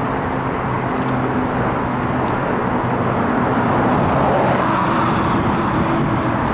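Steady motor-vehicle noise: a low engine hum under a broad rush that swells a little near the middle.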